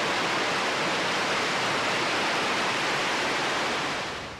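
Loud, steady roar of high-pressure steam venting from a cogeneration power plant, sounding like a jet engine, fading out near the end. The venting was set off by some sort of vacuum issue inside the plant that put it into a protective mode.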